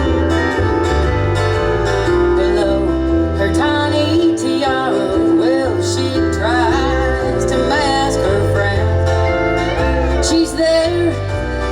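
Country band playing an instrumental passage: a walking bass and drums under a guitar-led lead line that bends and slides between notes.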